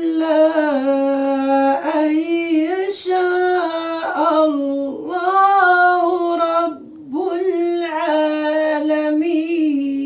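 A woman reciting the Quran in a melodic, chanted style, drawing out long held notes that bend slowly in pitch, with one short breath pause about seven seconds in.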